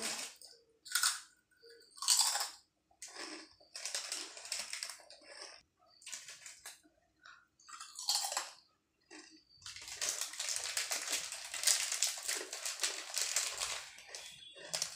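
Lay's potato chips being bitten and chewed, a run of separate crisp crunches. In the last few seconds a packet of Lay's chips is handled, crinkling steadily.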